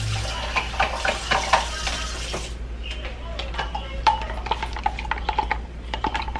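Dishes and utensils clinking and knocking in a kitchen, many short clinks one after another, over a steady hiss that stops suddenly about two and a half seconds in.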